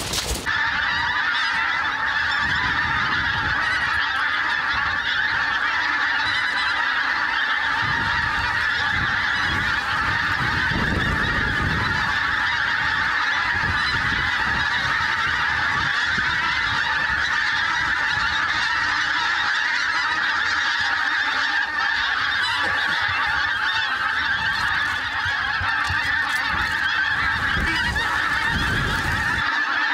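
A huge flock of pink-footed geese calling as they fly over. It is a continuous, dense clamour of many overlapping honks that never lets up.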